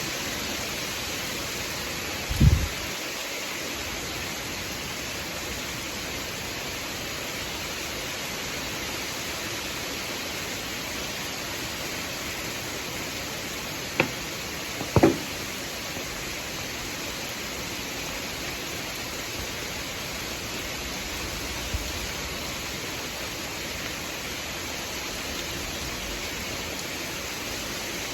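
Steady rain falling in a thunderstorm, an even hiss throughout. A short low thump comes about two and a half seconds in, and two sharp knocks a second apart come around the middle.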